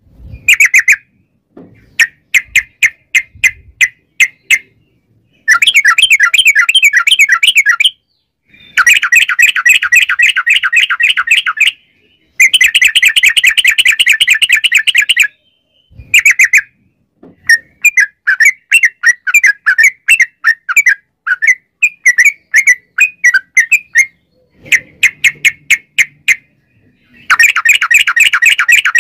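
Caged yellow-vented bulbul (trucukan) singing loudly. Its song is long, rapid rolls of repeated chirps lasting a few seconds each, broken by looser strings of single notes.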